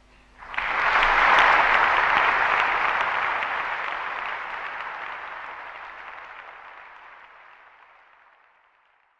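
Audience applauding, starting suddenly about half a second in, loudest a second later, then fading away steadily until it is gone near the end.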